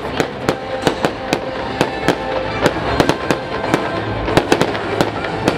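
Fireworks display: aerial shells bursting in an irregular string of sharp bangs, about three a second, over a continuous bed of crackle and echo.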